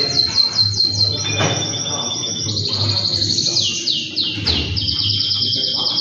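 Male canary singing a fast, continuous song of trills: rapid runs of falling notes, several a second, that switch to a new phrase about every second, all high-pitched.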